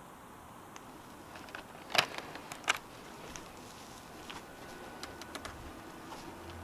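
Action camera being taken off its handlebar mount and handled: two sharp knocks about two seconds in and a moment later, then a few light clicks, over faint steady hiss.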